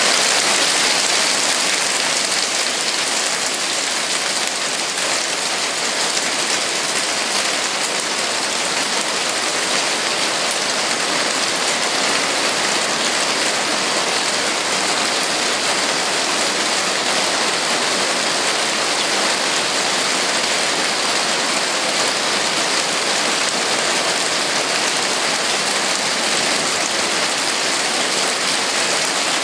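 Hail hitting the roof covering of a sunroom: a dense, steady clatter of countless small impacts that keeps up without a break.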